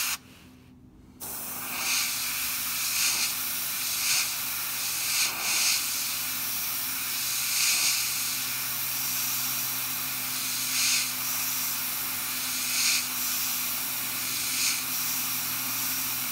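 Airbrush spraying compressed air, a steady hiss that starts about a second and a half in, with brief louder spurts every second or two as the trigger is moved. A faint low hum runs beneath.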